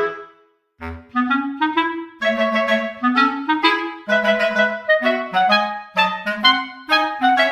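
Background instrumental music: a melody of short, quick notes on a reedy wind instrument, breaking off briefly near the start before carrying on.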